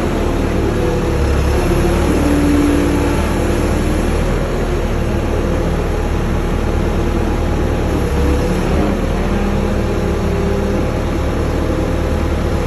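Telehandler engine running steadily under load, with a whine that drifts in pitch as the hydraulic boom moves the forks.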